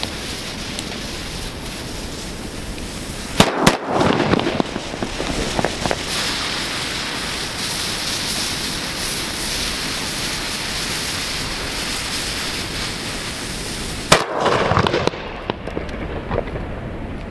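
A Salón Roger Trueno Detonante firework burning on the ground with a steady hiss. It goes off with two sharp bangs, about three and a half seconds in and again near the fourteen-second mark, each followed by about a second of crackling.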